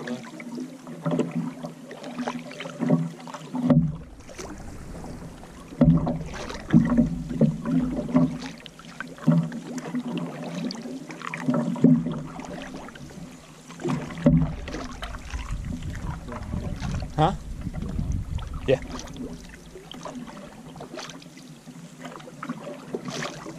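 Canoe paddles dipping and pulling through calm lake water, with splashing and water running along the hull, in a rhythm of roughly one stroke a second.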